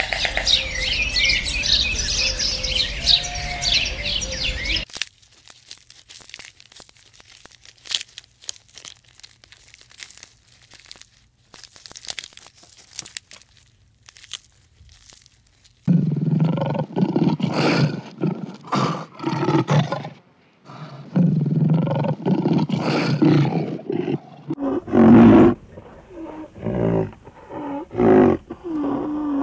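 Small birds chirping for the first few seconds, then faint scattered clicks and crunching. About halfway through, a large animal starts giving loud, low calls, repeated in short bursts.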